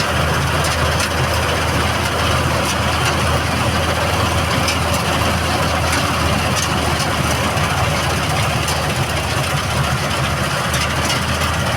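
John Deere combine harvester's diesel engine running at a steady pace, with light ticks and rattles now and then.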